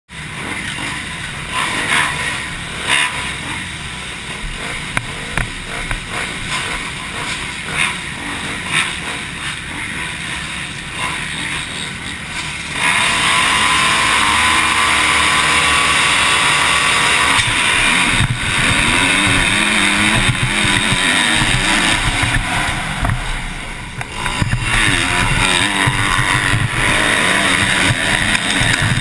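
Motocross bike engines at the starting gate: blipped and revving unevenly at first, then held loud at high revs from about thirteen seconds in. A few seconds later the bikes launch off the gate and accelerate down the start straight, the engine pitch rising and falling through the gears. The engines ease briefly near the first turn and then pull hard again, with wind rushing over the helmet microphone.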